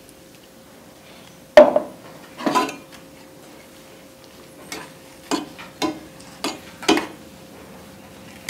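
Metal spatula knocking and scraping against a stainless steel pan while spinach and corn are stirred, with one sharp clank about a second and a half in, the loudest, followed by a string of shorter, irregular knocks.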